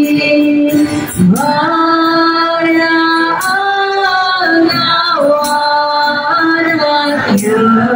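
A group of carollers, mostly women, singing a Christmas carol together, holding each note for about a second as the melody steps up and down.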